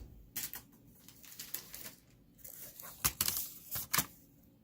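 Clicks and rustling from handling a plastic laptop keyboard and its ribbon connection, with a cluster of sharper clicks about three to four seconds in.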